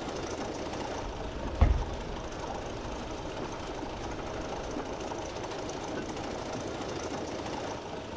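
OO gauge model Sentinel shunting locomotive running slowly on the track, its small electric motor and wheels making a steady whirring rattle as it draws a tank wagon. A single low thump about one and a half seconds in is the loudest moment.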